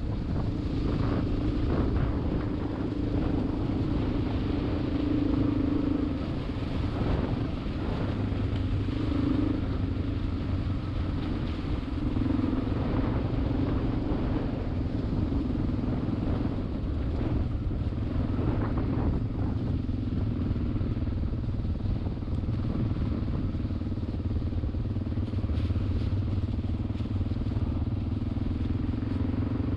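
Vehicle engine running at fairly steady revs while driving a rough track, the pitch rising and falling a little, with scattered knocks and rattles.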